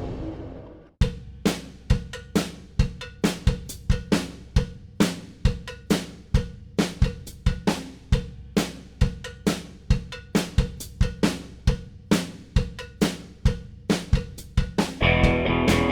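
Background music: a drum-kit beat of evenly spaced hits, about two a second, starts about a second in after the previous passage fades out. Near the end the rest of the band, with guitar, comes in.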